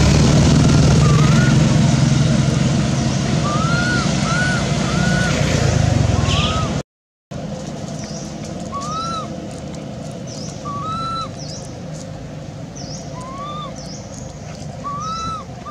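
Infant macaque giving short, thin whimpering calls that rise and fall in pitch, about a dozen of them spaced a second or so apart. They sit over a low background rumble that drops away after a brief break about seven seconds in.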